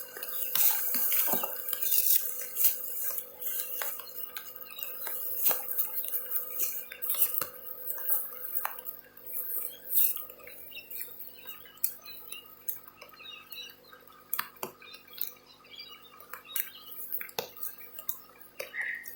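Drizzle raindrops pattering on a plastic bag close over the phone's microphone: many irregular, sharp little ticks and taps.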